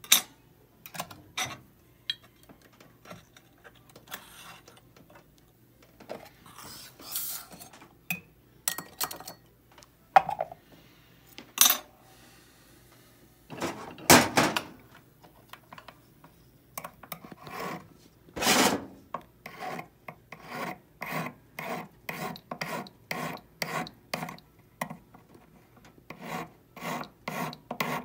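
Hand file rasping across a 14kt gold bangle in steady short strokes, about one and a half a second, from a little past halfway. Before that, scattered clicks, knocks and a few longer scrapes of tools and metal being handled on the wooden bench, with a sharp click at the very start.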